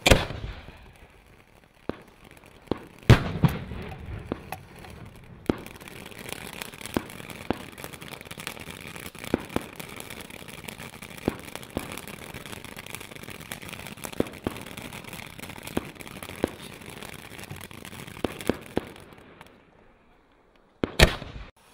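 'Magic In the Garden' ground fountain firework burning. It gives a steady hiss of sparks with frequent sharp crackles and pops, and loud bangs about three seconds in. It dies away about 20 seconds in, then a fresh burst of hiss and pops comes near the end.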